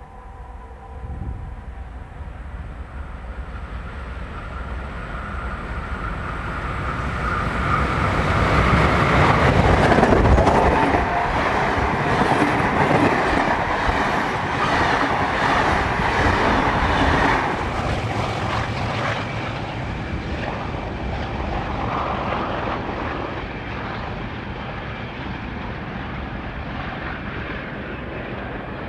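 NSWGR C38 class 4-6-2 steam locomotive 3801 approaching and passing under steam, loudest about ten seconds in. Its carriages follow, rolling by with wheels clicking over the rail joints, and the sound eases away over the last several seconds.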